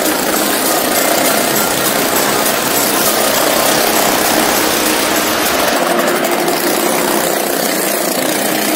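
Motorcycle engine running steadily as the bike rides round the inside wall of a wooden wall-of-death drum.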